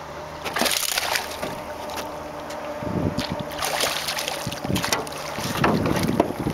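A hooked bass splashing and thrashing at the water's surface beside a small boat as it is played in, several splashes over a steady wind noise on the microphone.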